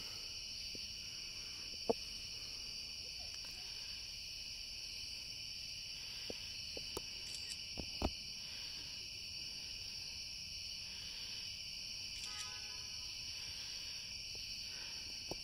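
Steady chorus of night insects, a continuous high-pitched drone, with a few faint clicks about two and eight seconds in.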